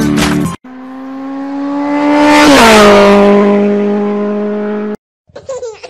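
A car engine passing by at speed: its steady tone swells to loudest about two and a half seconds in and drops in pitch as it goes past, then cuts off suddenly.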